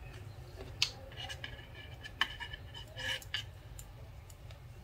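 Metal knitting needles clicking lightly against each other as stitches are knit, a few faint scattered clicks over a low background hum.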